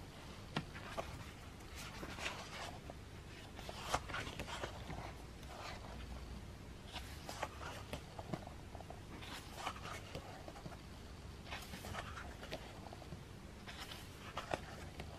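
Pages of a photobook being turned by hand: repeated paper rustles and light page flaps, one every second or two.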